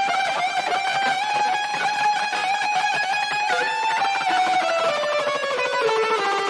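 Instrumental pop music without vocals: an electric guitar lead holds long wavering notes over a full band backing, the melody stepping downward in the last couple of seconds.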